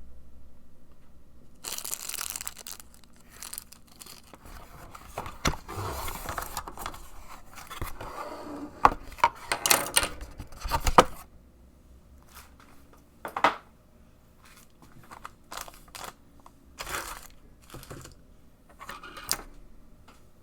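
Keyboard packaging being opened and handled: crinkling and tearing of wrapping with rustling, loudest and busiest around the middle, then scattered short rustles and light knocks.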